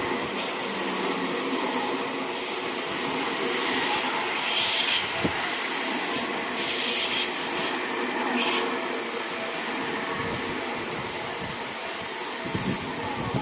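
Seibu Ikebukuro Line train running past a level crossing: a steady rushing of wheels and motors, with brief louder hissing patches about four, six and a half and eight and a half seconds in.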